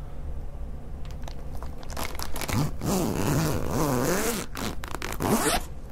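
The zipper of a zip-around tool case is pulled open slowly. A few faint clicks come first, then a rasping run of the zipper teeth from about two seconds in for some two and a half seconds, and a shorter pull near the end.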